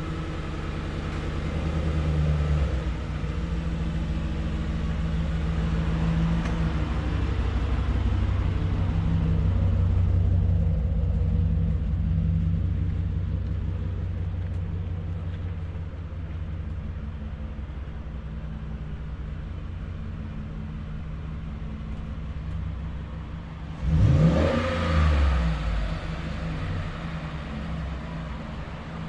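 Ford F-150 pickup's engine running through a Flowmaster two-chamber dual exhaust, a steady low rumble that eases off partway through. About 24 seconds in it is revved once, the pitch rising sharply and falling back.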